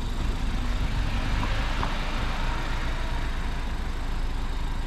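Engine of a truck-based camper running steadily, a low drone with road noise.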